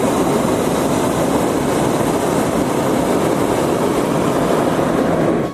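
Hot air balloon's propane burner firing in one long, steady blast that cuts off suddenly near the end.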